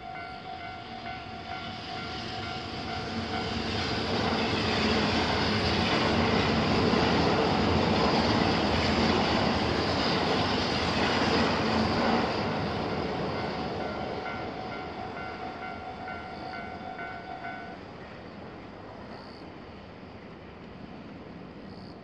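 Japanese railway crossing's electronic warning bell ringing steadily while a Kintetsu limited express train passes. The train's running noise swells, holds loud for several seconds and fades away. The bell stops about three-quarters of the way through as the crossing clears.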